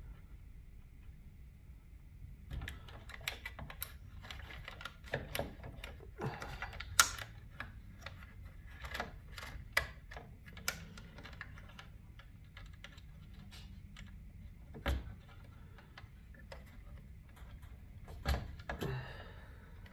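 Wires and a small plastic connector being handled and fed through a garage door opener's metal frame: irregular light clicks and rattles, busiest in the first half, with a single sharper click about fifteen seconds in and a few more near the end.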